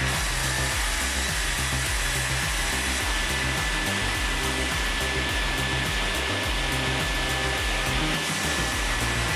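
Steady machine noise, an even rushing sound with a thin high tone held throughout, over background music with a regular bass beat.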